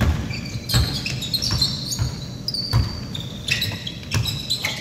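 Basketball bouncing irregularly on a hardwood gym floor during play, several dull thuds, with short high sneaker squeaks on the wood in between.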